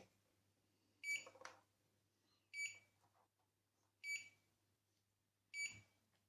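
FrSky radio transmitter beeping in binding mode: short, identical high-pitched beeps about every second and a half, four in all. The beeping signals that the transmitter is in bind mode while it pairs with a receiver.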